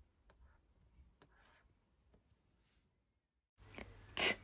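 Near silence with a few faint taps of a fingertip on a whiteboard. Near the end comes a short, hissy burst of a woman's breath or voice, the start of sounding out a word.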